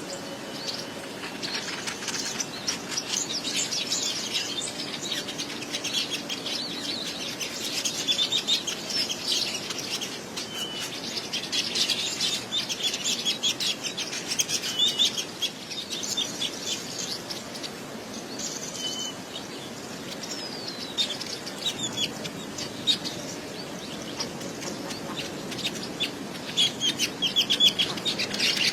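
Many small birds chattering and chirping at once in a fast, continuous stream of short notes.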